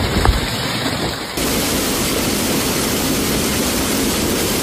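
Heavy storm noise: the rush of torrential rain driven by strong wind, with wind rumble on the microphone. About a second and a half in it cuts sharply to a steadier, fuller hiss of wind-driven rain.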